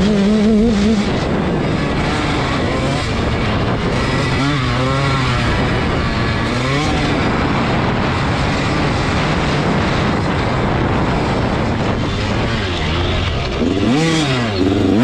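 Dirt bike engine being ridden hard, its revs swinging up and down as the rider works the throttle over the track, under heavy wind rush on the microphone.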